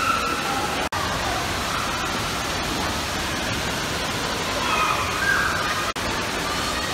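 Steady rushing of water in an indoor pool, with faint children's voices over it. The sound drops out for an instant twice, about a second in and near the end.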